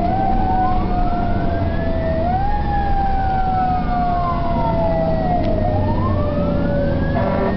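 Fire truck siren heard from inside the cab, in a slow wail that rises, falls over a few seconds, then rises again. A second, steadier siren tone sinks slowly beneath it, over the truck's engine running.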